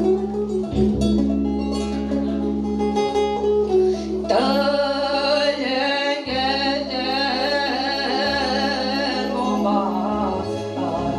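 A Romani 'hallgató' (slow listening song) performed live: guitar accompaniment over steady low notes, then about four seconds in a woman's voice comes in, singing with vibrato.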